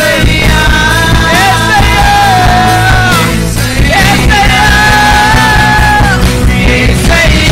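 A live worship band playing a Telugu worship song, with electric guitar, electric bass and drum kit under a lead voice holding long sung notes. The music is loud and continuous.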